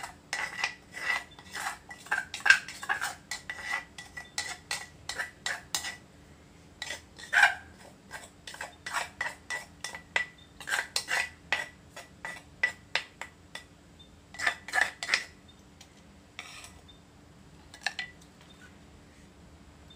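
Plastic spoon scraping and knocking inside a clay mortar as papaya salad is scooped out: quick repeated strokes, a short pause, more strokes, then they thin out and stop near the end.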